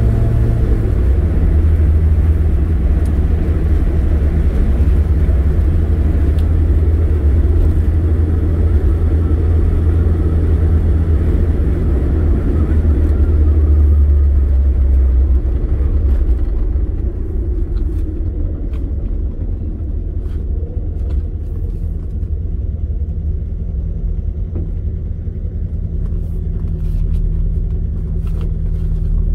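Car engine and tyre/road rumble heard from inside the moving car, cruising steadily. About halfway through it eases off and grows quieter as the car slows, settling into a steady idle while stopped at a light.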